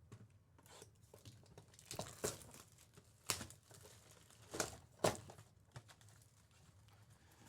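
Faint crinkling and tearing of trading-card pack wrappers being opened by hand, in short scattered crackles with quiet between them.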